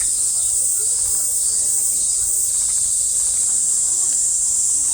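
Insects, cicadas or crickets, droning as one loud, steady, high-pitched hum, with faint voices of other visitors underneath.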